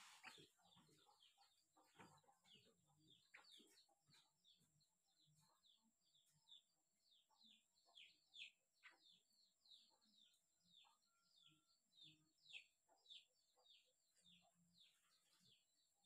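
Javan myna chattering faintly: a long series of short, high chirps, each falling in pitch, repeated without pause.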